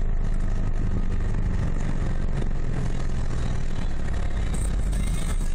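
A car driving along a city road: steady engine hum and road noise.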